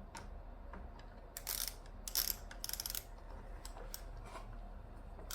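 Hard plastic and metal parts of an upright vacuum being handled and worked at to free a loose part: scattered short clicks and scrapes, with a quick run of ticks about two and a half seconds in.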